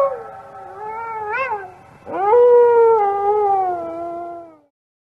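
An animal howling: the end of one long call that slides down in pitch with a brief wobble, then a second long howl that falls slowly and stops about four and a half seconds in.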